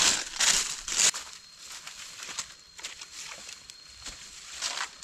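Dry fallen leaves crackling and rustling as a gloved hand rakes through the leaf litter, loudest in the first second, then softer rustling with another burst of crackling near the end.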